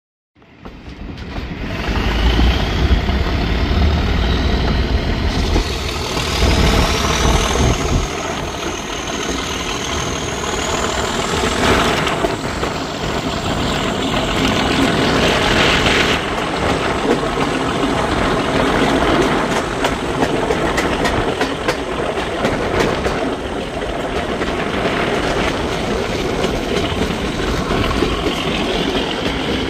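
Class 37 diesel locomotive's English Electric V12 engine working hard as it hauls the train, with a whine that rises in pitch over the first ten seconds or so. Under it is the steady noise of the train in motion.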